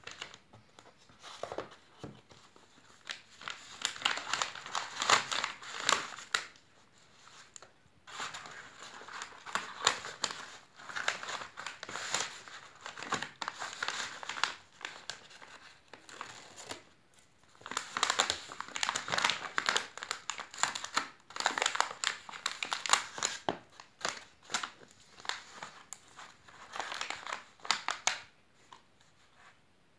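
Paper padded envelope crinkling and rustling as it is handled, folded and pressed flat, in several bouts with short pauses between them.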